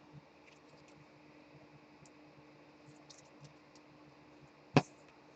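Soft scattered clicks and taps over a faint steady hum, with one sharp click near the end, typical of small objects being handled at a desk.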